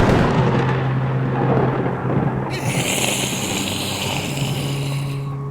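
A thunderclap cracks at the start and rolls off into rumbling, over a steady low droning tone; a loud rush of high hiss comes in about halfway through and cuts off near the end.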